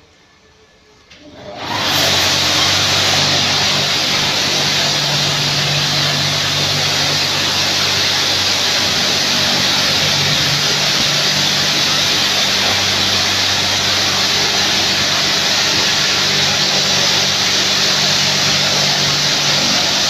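A Sino Star touchless car washing machine's high-pressure water jets start spraying suddenly about a second and a half in, then keep up a loud, steady hiss. Under the hiss runs the steady hum of its pump motor.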